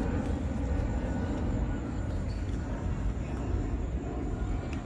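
Jet airplane flying over, heard as a steady low rumble.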